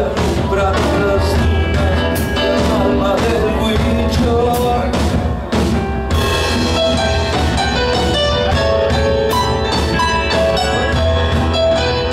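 Live progressive rock band playing loud, with drum kit, electric guitar, bass and keyboard. After a short dip about six seconds in, the music moves into a passage of short repeated notes.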